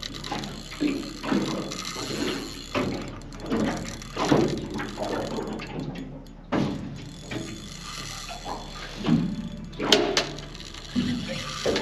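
Heavy spinning reel under the load of a hooked fish, its gears and drag clicking in repeated bursts.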